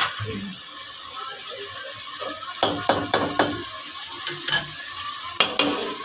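Mung dal simmering in a steel pot with a steady hiss, while a slotted steel spoon clinks and scrapes against the pot, most of all about three seconds in. Near the end a lid clatters onto the pot's rim.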